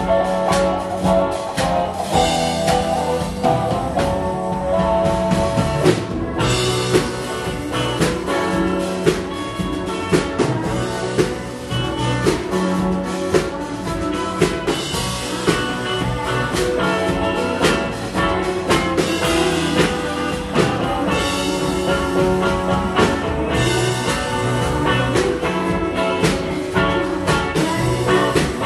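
Live rock band playing, with guitar over a drum kit keeping a steady beat.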